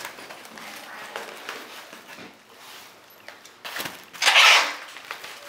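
Handling noise from a box wrapped in plastic film on a table: soft rustles and knocks, with one loud rustle of about half a second some four seconds in.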